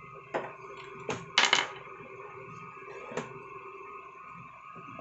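The side panel of a desktop PC case being handled and opened: a few sharp clicks and knocks, loudest in a quick cluster about one and a half seconds in. Under them runs the steady hum of the running computer.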